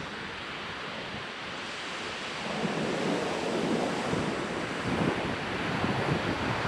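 Ocean surf washing onto a sandy beach, with wind buffeting the microphone. The wash swells louder about two and a half seconds in.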